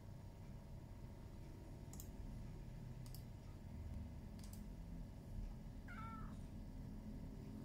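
A sleepy domestic cat gives one short, faint meow about six seconds in, a coaxing meow asking to be stroked. A few light clicks come earlier.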